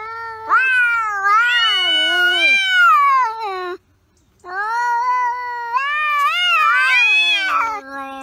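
Domestic cat yowling: two long, drawn-out calls that waver up and down in pitch, with a short break just before halfway. The second call drops to a lower, quieter note near the end.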